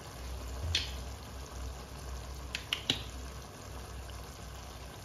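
Chicken, onion and tomato mixture simmering in a wok: a faint steady bubbling with a few sharp pops, three of them close together between two and a half and three seconds in.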